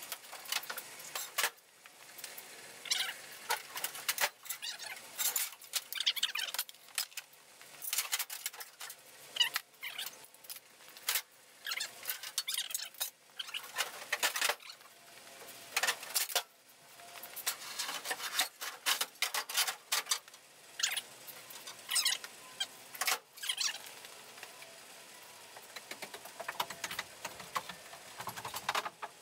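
Loose car parts clinking and clattering as they are handled and lifted out of an empty engine bay, with scuffs and rustles between the knocks. The knocks come irregularly and thin out near the end.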